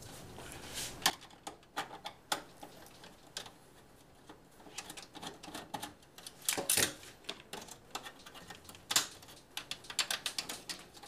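Irregular small metal clicks and taps of a screw being backed out of the expansion-slot bracket of a steel desktop PC case, with a few louder knocks and a quick run of ticks near the end.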